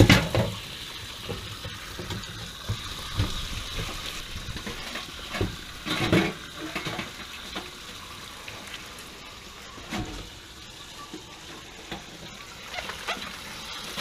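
Water spraying and splashing out of an old water heater being drained, steady throughout. Sharp knocks come right at the start, about six seconds in and about ten seconds in, the first being the loudest.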